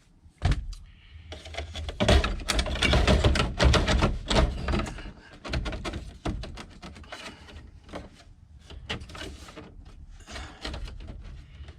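Irregular clicks, knocks and scraping of an instrument cluster being handled and fitted back into a vehicle dash, with one sharp click about half a second in and the busiest clatter from about two to five seconds in.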